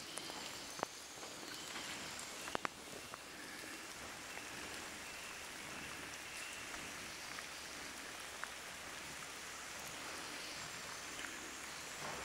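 Steady rain falling, with a few sharp clicks of drops or knocks in the first few seconds.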